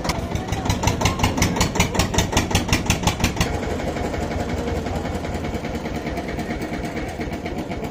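Diesel tractor engines running: first a rhythmic engine beat about five times a second, then, about three and a half seconds in, a steadier, smoother engine sound.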